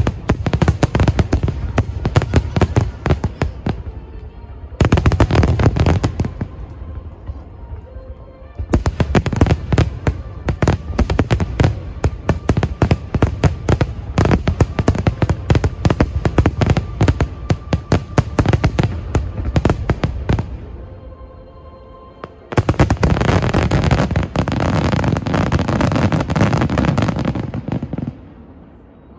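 Aerial fireworks barrage: many shells bursting in quick succession, a dense rapid crackle of bangs that comes in waves, easing off briefly a few times and dying away near the end.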